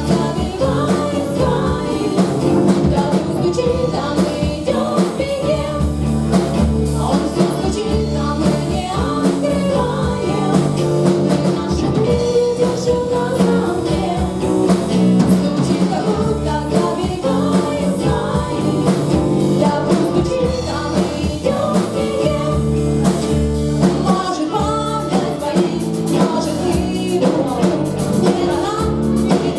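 Rock band playing live, with a singer over electric guitar, bass and drums.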